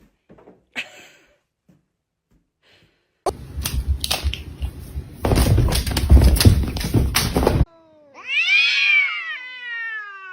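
Domestic cat giving one long, drawn-out meow near the end, rising and then falling in pitch. Before it come a few seconds of loud rustling and knocking noise.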